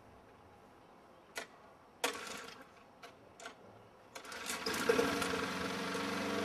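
Lawnmower starting up: a few sharp clicks, then about four seconds in its motor starts and runs steadily, rising in level as it comes up to speed.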